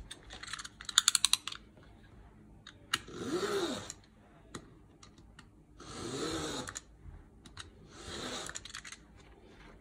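Snap-off utility knife's blade being clicked out in a quick run of ratchet clicks, then three strokes of the blade drawn along a steel ruler, each about a second, cutting through a printed canvas sheet.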